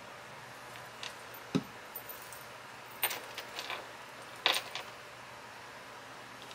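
Small hard craft supplies handled and set down on a work table: a soft knock about a second and a half in, then two short clusters of light clicks and clatter, around three and four and a half seconds in.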